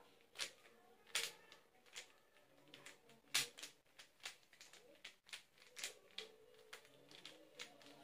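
Plastic 3x3 Rubik's cube being twisted quickly to scramble it: its layers click and clack at irregular intervals, with one sharper clack about three and a half seconds in.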